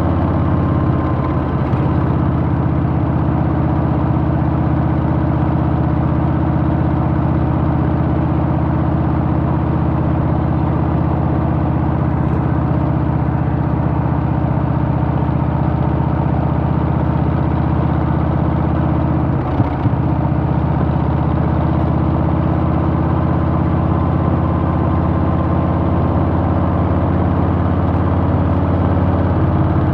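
Harley-Davidson Softail's Milwaukee-Eight V-twin engine running steadily under way, with a brief break in the sound about twenty seconds in.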